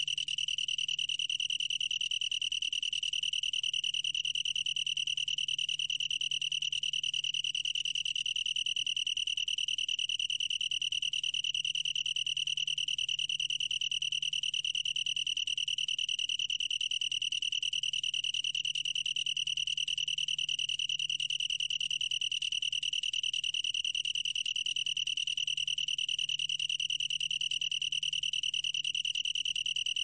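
Long-tailed tree cricket (긴꼬리, Oecanthus longicauda) singing one continuous, even trill with no breaks. The recording was made at 26 °C, a temperature that sets the trill's pulse rate.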